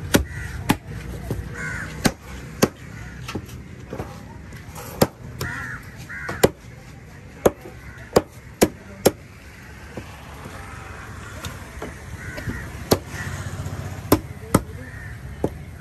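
Fish being chopped with a heavy knife: sharp, irregular strikes, about fifteen in all, with crows cawing several times in between.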